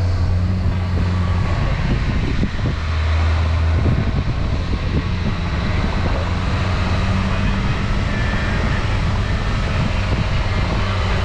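Car engine running steadily under tyre and wind noise, heard from inside the moving car with the window open, with a few low bumps a few seconds in.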